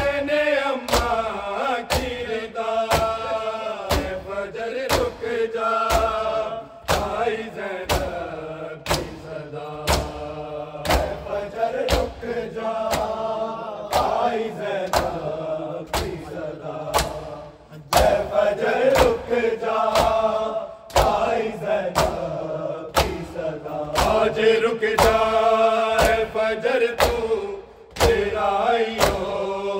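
Male voices chanting an Urdu noha, with a steady rhythm of matam: open hands striking bare chests on every beat. The chant pauses briefly a few times, and the strikes carry on.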